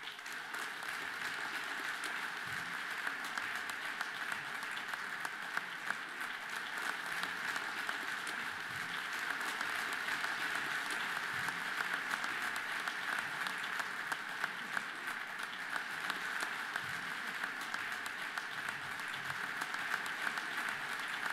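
Audience applauding: many hands clapping at once in a dense, steady stream.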